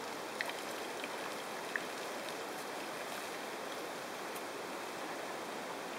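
Steady outdoor background hiss with a few short, faint ticks in the first two seconds.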